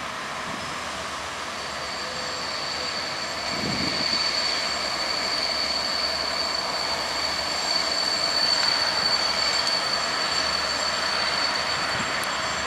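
GM-engined diesel-electric locomotive (LDE 1132) rolling slowly into the station with its passenger train, the running gear giving a steady, high-pitched squeal that sets in about a second and a half in and dies away near the end. The rumble of the train grows louder about four seconds in as it draws closer.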